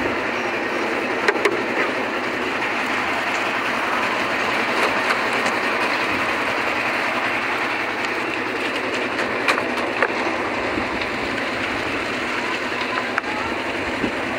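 Concrete mixer running steadily, its drum churning a clattering load of concrete, with a few sharp metal knocks about a second in and again near the middle.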